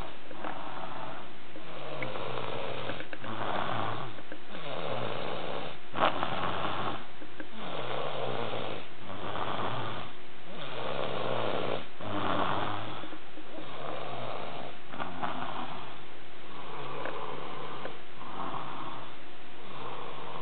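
A man snoring loudly in his sleep, each snore repeating about every second and a half in an even rhythm, with a short click about six seconds in.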